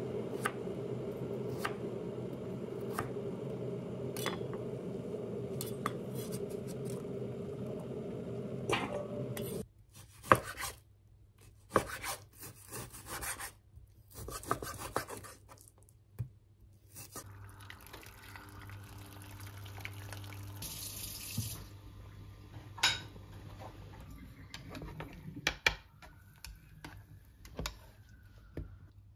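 A kitchen knife cuts daikon radish and then pork on a wooden chopping board, with a knock each time the blade meets the board. A steady rushing noise runs under the first ten seconds. In the last third it is quieter, with a few clanks of a pot on a glass-top hob.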